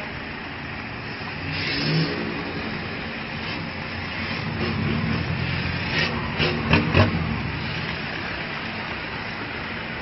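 Cars and pickup trucks driving past one after another, engines running with some revving. A quick run of three or four short, sharp sounds about six to seven seconds in.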